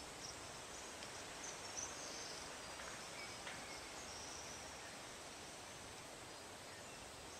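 Faint open-air ambience: a low, even hiss with a few faint, wavering high-pitched chirps.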